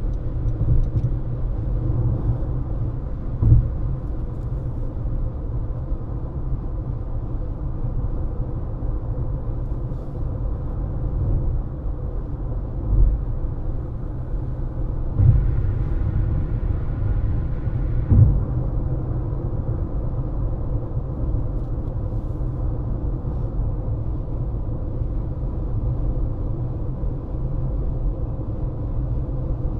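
Car driving on a highway, with steady low road and tyre rumble. A few brief thumps come from the road surface, the sharpest about three and a half seconds in and again around eighteen seconds. Between them, from about fifteen to eighteen seconds, a brief extra hiss rises over the rumble.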